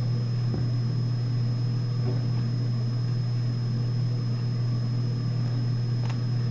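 A steady low hum with a thin, faint high whine above it, unchanging throughout.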